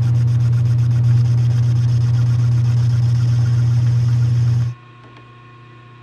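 Metal lathe running steadily with a strong low hum and a fine rapid ticking, during a finishing pass on a cast two-stroke engine crankcase. It cuts off suddenly about four and a half seconds in, leaving only a faint steady hum.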